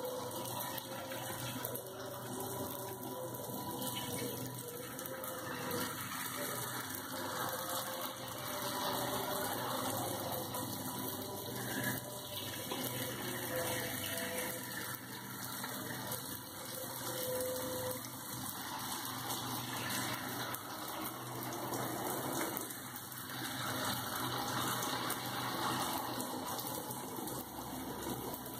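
Jalebi batter frying in hot ghee in a wide pan, a steady sizzle.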